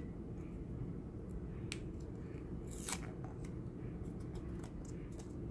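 Small sharp clicks and a brief crackly cut about three seconds in, the loudest sound, as a pointed tool cuts and peels apart the thin plastic insert of a Disney MagicBand. A steady low hum runs underneath.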